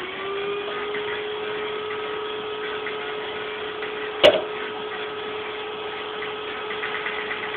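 A small electric motor spins up and then hums at a steady pitch, with a single sharp knock about four seconds in.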